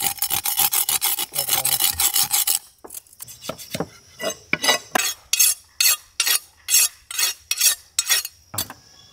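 A large steel fish-cutting knife being sharpened with a hand-held stone: a run of rapid rasping strokes of stone along the blade, then after a short pause separate strokes at about three a second.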